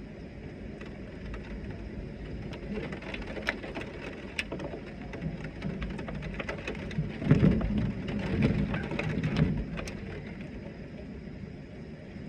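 Heavy rain falling steadily, with sharp drop ticks on a hard surface. About seven seconds in, a loud low rumble swells and rolls for about three seconds before easing off.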